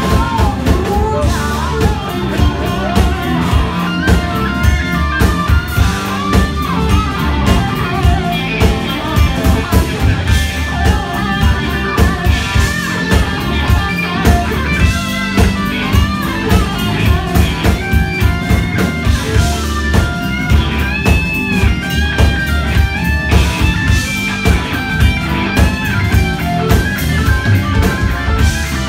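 Live blues-rock band: an electric guitar solo with bent notes over bass guitar and a steady drum-kit beat.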